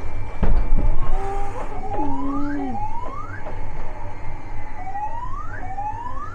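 Sound effects of a fighter-jet flight-simulator film played loud through the ride's speakers. A steady low rumble runs under a thump about half a second in, with rising, siren-like swoops in two pairs, near the middle and again near the end.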